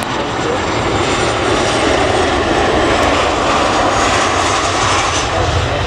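Airliner engines running, a loud steady rumble with a thin high whine on top.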